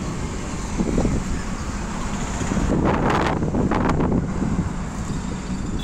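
Road and engine noise of a moving car heard from inside the cabin, with wind buffeting the microphone. It swells into a louder rush about three seconds in and eases off a second or so later.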